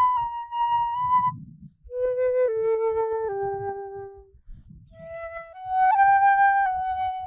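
Solo flute playing a slow melody of held notes. A phrase of notes steps downward, a pause follows, then the notes climb again about two-thirds of the way through.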